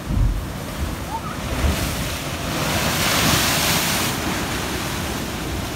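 Ocean waves crashing onto rocks: a wave breaks and its spray hisses, swelling to a peak about three seconds in and then easing. Wind buffets the microphone with low rumbles near the start.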